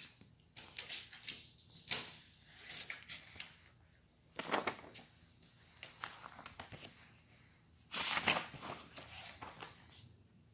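Paper rustling as workbook pages are handled and turned, in short irregular bursts, with the loudest rustles about four and a half and eight seconds in.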